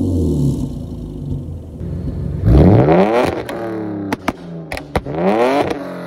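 BMW E46 325i's M54B25 inline-six revved through an exhaust with catless headers and a muffler delete: two quick, sharp revs, the first the loudest, each dropping back to idle, with several sharp pops and cracks from the exhaust between and after them from a pops/burbles tune. At the start a rev is already falling back on the muffler-delete-only setup.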